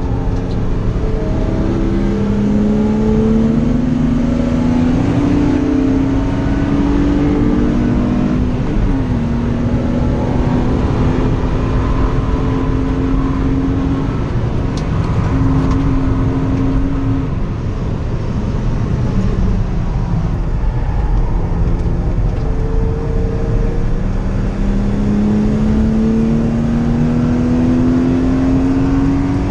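BMW 323ti's 2.5-litre straight-six, heard from inside the cabin, pulling hard with its note climbing through the revs, dropping at an upshift about eight seconds in, then holding steady. It eases off through the middle and climbs again near the end, over steady road and wind noise.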